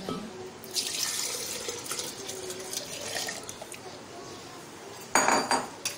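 Milk poured from a bowl into a glass blender jar, a steady splashing pour as the jar fills. Near the end comes a brief loud clatter.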